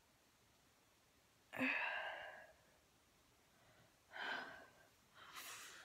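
A person's breathy, unvoiced vocal sounds close to the microphone: a sigh-like exhale about a second and a half in, a shorter one about four seconds in, and a faint breathy hiss near the end.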